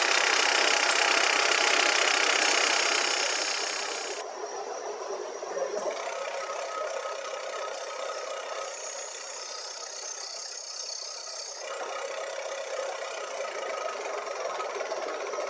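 Wood lathe running with turning tools cutting a spinning pine blank. The noise is loudest and hissiest for the first four seconds, then drops abruptly to a quieter, steadier run with a parting tool cutting in, and changes abruptly again near twelve seconds.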